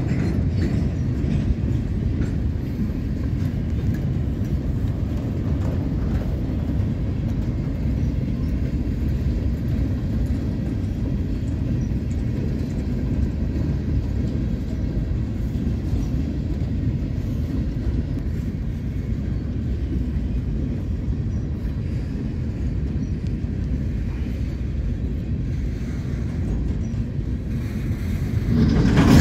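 A long freight train of auto-rack cars rolls past: a steady low rumble of steel wheels on rail with faint scattered clicks, swelling louder near the end.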